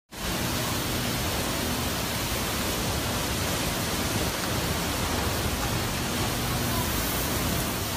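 Hurricane wind and driving rain: a steady, dense rush of noise that does not let up.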